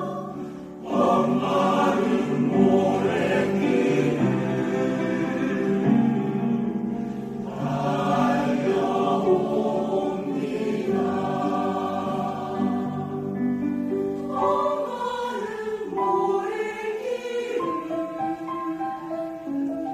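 A choir singing, with a brief pause just under a second in before the voices come back in together on sustained chords.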